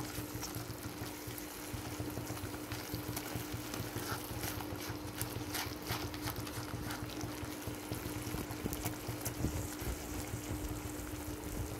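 Spatula stirring thick, simmering mushroom gravy in a nonstick kadai: a steady wet, bubbling stir with light clicks and scrapes of the spatula against the pan, over a steady hum.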